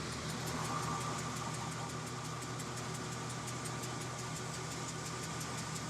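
Engine idling steadily, with a low even hum and a fast, regular ticking over it.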